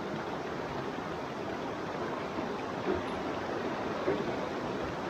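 Shallow, fast mountain creek rushing steadily over rocks, with a few small splashes of a person wading through it.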